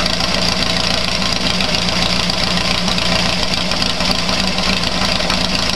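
VW Beetle's air-cooled flat-four engine idling steadily at low revs, running on hydrogen alone with its gasoline line disconnected.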